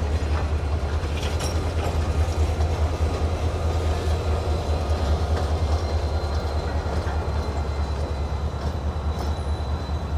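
Freight train rolling through a grade crossing during switching, its wheels clacking over the rail joints above a steady low rumble. A diesel switching locomotive comes up to the crossing in the second half.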